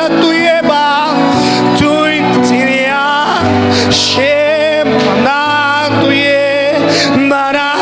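Slow worship music: sustained instrumental chords under a solo voice singing long, wavering notes.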